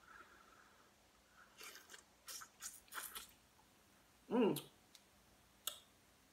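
Close-up chewing of a sauce-dipped shrimp: a run of short crackly clicks from the mouth, a brief hummed 'mm' a little past four seconds in, then a single click near the end.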